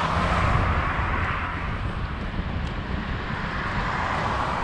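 Steady rushing wind and road noise with a low rumble during a night bicycle ride, easing slightly toward the end.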